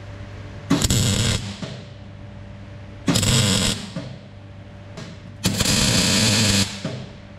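MIG welder tacking a V-band flange onto the end of a 3-inch steel exhaust pipe: three short bursts of arc crackle, the last and longest about a second.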